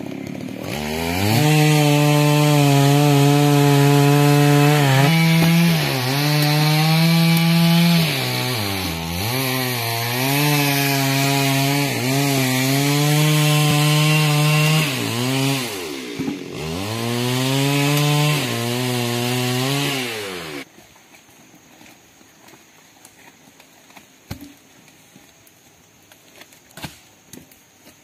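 A two-stroke chainsaw revs up and runs at high speed while cutting wood, its engine note sagging and recovering several times under load, then cuts off after about 20 seconds. A few faint knocks follow.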